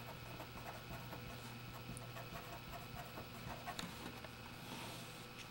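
Faint scratching of a Sharpie felt-tip marker on paper as block letters are written by hand, in short strokes and ticks.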